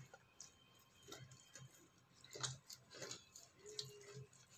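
Faint, irregular squishing and creaking of an orange half being twisted by hand on a plastic citrus reamer, with a few soft clicks.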